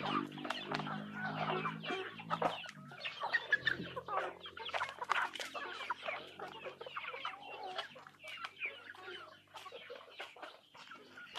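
Backyard chickens clucking and giving short chirping calls while feeding, with scattered sharp clicks. The calls thin out in the last few seconds.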